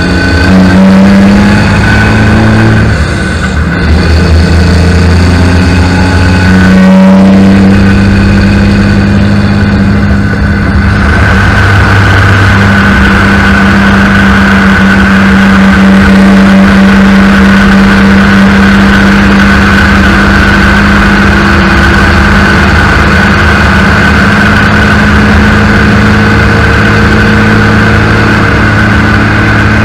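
Semi truck's diesel engine running steadily at highway speed, its pitch shifting a couple of times early on, over continuous road and tyre noise. About eleven seconds in the rushing road noise grows louder and fuller as the truck drives through a road tunnel.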